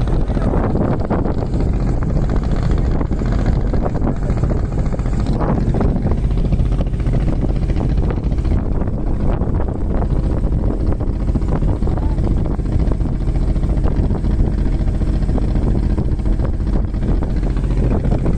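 Vehicle on the move off-road: a steady low rumble of engine and travel noise, with wind buffeting the microphone.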